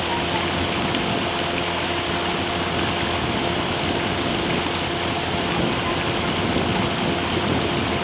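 Steady rushing noise of a boat underway on a river, with a faint steady engine hum beneath the rush of water and wind.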